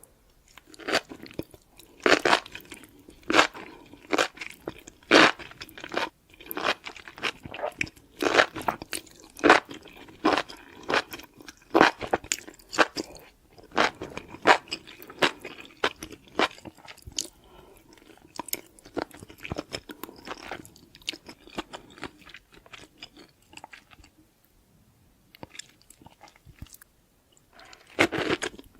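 Someone eating food with cheese: crisp crunching bites and chewing, about one sharp crunch a second at first, thinning out, with a short quiet pause before more crunching near the end.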